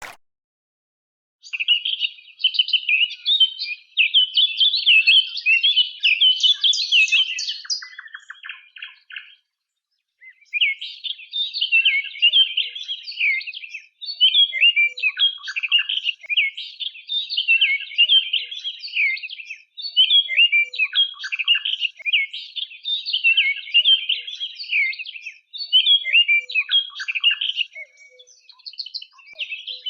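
A songbird singing long, rapid warbling phrases, with a short break about ten seconds in.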